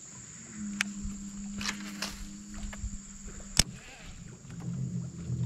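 Insects buzzing steadily at a high pitch. Under them a low steady hum runs for about three seconds and stops, with a faint click about a second in and a loud sharp click just after it stops.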